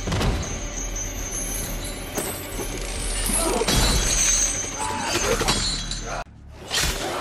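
Movie fight-scene sound effects: heavy metal chains clattering and a run of sharp crashing hits over dramatic score music. The sound cuts out briefly about six seconds in, then comes back with one more sharp hit.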